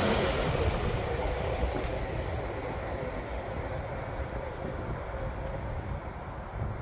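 Class 195 diesel multiple unit pulling away, its engine rumble and high whine fading steadily as it draws off.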